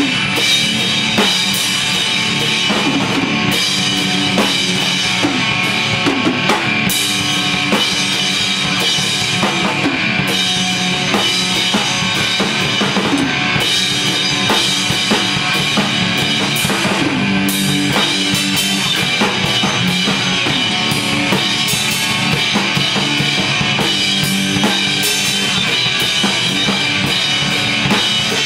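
A drum kit and an amplified electric guitar playing together without a break, the drums hit in a steady stream throughout.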